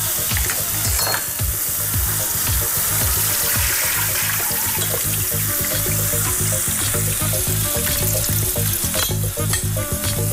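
Chopped courgettes, garlic and pork sizzling steadily as they sauté in oil in a frying pan, with a utensil stirring and scraping through them.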